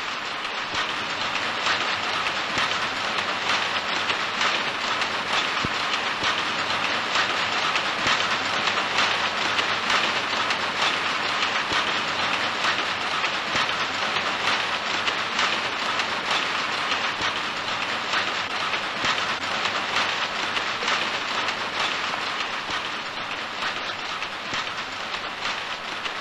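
Power looms running together in a weaving shed: a dense, steady clatter of many machines at once.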